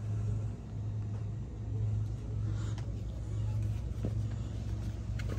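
A steady low hum that dips briefly a few times, with a couple of faint clicks near the end.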